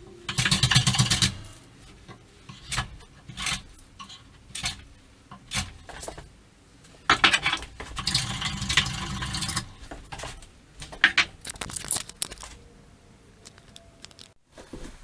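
Hand plane taking passes along a pine board: a short scraping stroke at the start and a longer one about seven seconds in, with sharp knocks and clicks of the tool and work between strokes.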